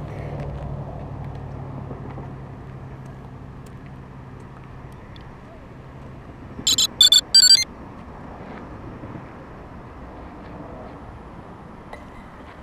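Three short, loud electronic beeps in quick succession about seven seconds in. Under them is a low steady hum that fades away over the first several seconds.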